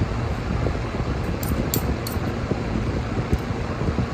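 Fork and spoon clinking lightly against a plate a few times, about one and a half to two seconds in, over a steady rushing noise with a low rumble.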